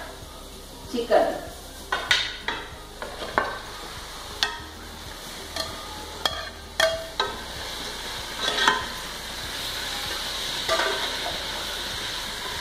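A steel ladle knocks and scrapes against a bowl and a pot as raw chicken pieces are tipped into a hot pot of fried onion and carrot. From about two-thirds of the way in, a steady sizzle builds as the chicken starts frying and is stirred.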